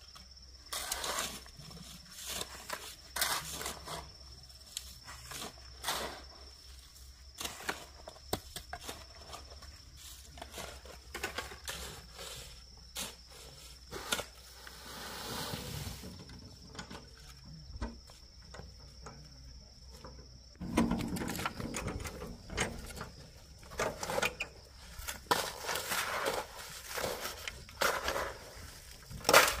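Irregular knocks and scrapes of stones being handled and set down, growing busier and louder about two-thirds of the way through. A steady high thin tone runs behind them and stops at about that point.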